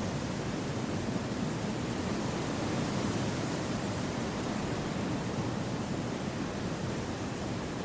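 Wind rushing through a forest as a steady, even noise with no distinct gusts or other events, heaviest in the low range.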